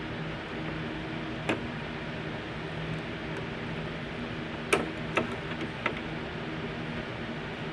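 A few irregular sharp clicks and taps, the loudest just under five seconds in, from hands and tools working on a grandfather clock movement, over a steady low hum.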